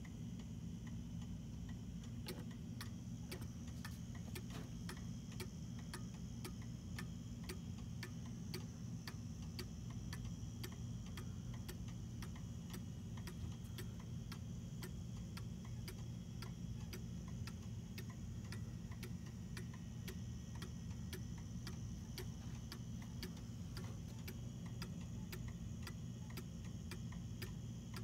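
Antique Johann Baptist Beha Black Forest cuckoo clock ticking steadily, a few even ticks a second, over a low steady hum.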